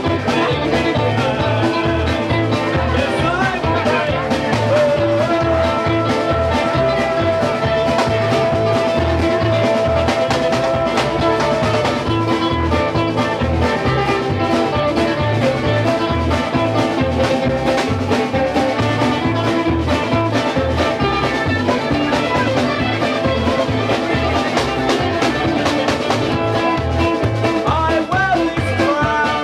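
Live band playing an upbeat rock-and-roll number on hollow-body electric guitar and upright double bass over a steady driving beat, with one long held note partway through.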